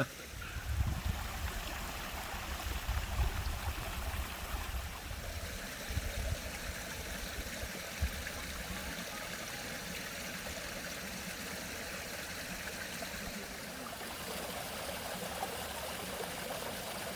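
Steady rushing of a small stream, with irregular low rumbles through the first half that die away about halfway through.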